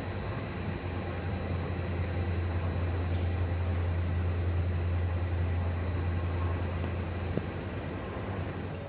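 Airport ramp machinery running: a steady low drone with a thin high whine over a haze of noise. A single click comes near the end, and the drone eases off after it.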